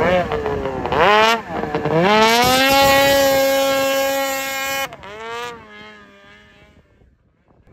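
Snowmobile engine revving hard for a wheelie: the pitch rises quickly, then holds steady at high revs for about two and a half seconds. The throttle is cut sharply about five seconds in, there is one short blip, and the engine fades away as the sled moves off.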